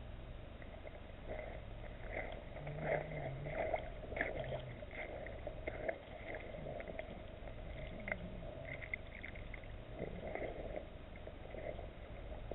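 Faint, muffled splashing of shallow river water in small irregular splashes, over a low steady rumble.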